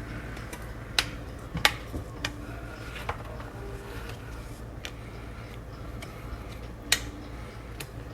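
Raw potato slices being laid into a casserole dish, giving scattered sharp clicks and taps at irregular intervals, about six in all, over a steady low hum.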